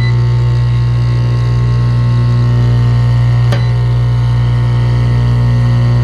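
Ground-loop heat pump running: a steady electrical machine hum with a strong low tone and a stack of higher overtones. A single sharp click comes about halfway through.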